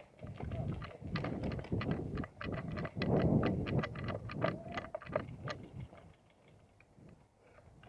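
Hurried footsteps with the rattle and knock of kit and gun as a player moves up, an uneven string of thuds and clicks that peaks about three seconds in and dies away about six seconds in.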